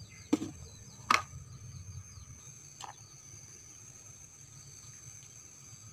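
Two sharp knocks about a second apart and a fainter one a couple of seconds later, from handling while picking chilies, over a steady high-pitched insect drone.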